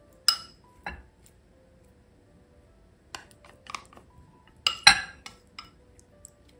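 A small glass dish and wooden chopsticks clinking against a glass mixing bowl while tuna is scraped into it: a scattered series of sharp, lightly ringing clinks, the loudest pair about five seconds in.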